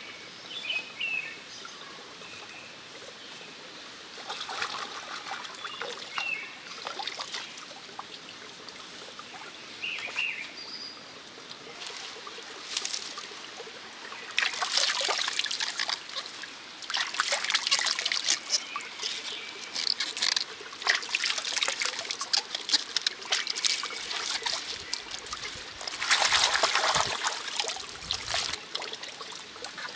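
Water trickling and splashing in several spells of a few seconds each, with occasional short bird chirps.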